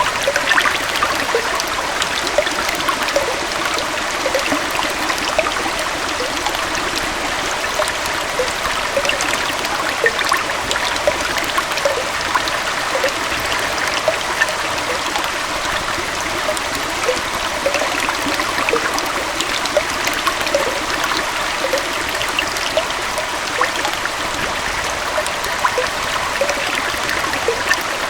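Small waterfall and stream running steadily, with a constant rush of water and many small splashes and gurgles scattered through it.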